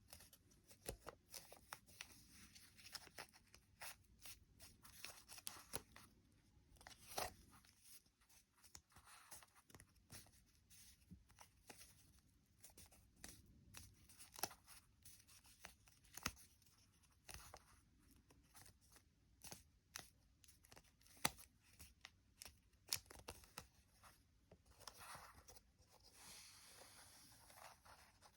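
Paper being folded and creased by hand: faint crinkles, rustles and small sharp taps at irregular intervals, with a longer rustle near the end.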